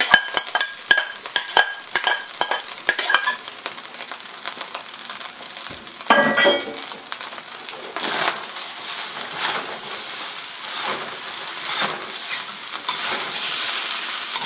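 Fried rice stir-frying in a carbon steel wok: hot oil sizzles while a ladle and spatula scrape and turn the rice in repeated strokes. In the first few seconds there are sharp metallic clinks of utensils against the wok.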